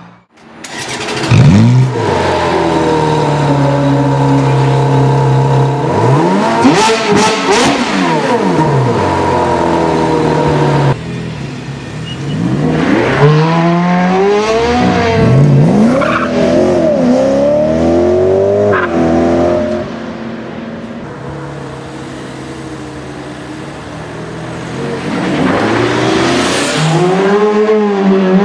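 Ferrari 430 Scuderia's 4.3-litre flat-plane V8 revving and accelerating hard, its pitch climbing and dropping again and again through gear changes.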